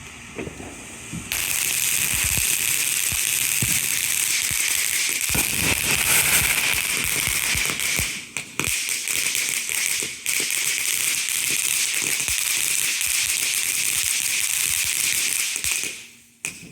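Firework burning with a steady, loud hissing crackle. It starts about a second in, falters briefly twice midway, and dies away near the end.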